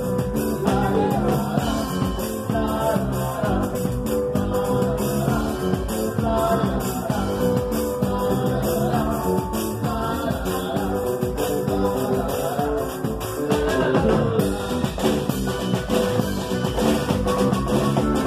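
A live Mexican band playing through the stage PA, with bass guitar and a steady beat.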